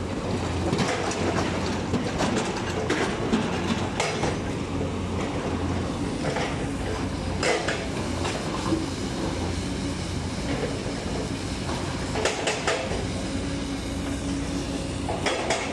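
JCB 220LC hydraulic excavator's diesel engine running steadily as the machine swings and works, with a dozen or so sharp metallic clanks and knocks scattered through it.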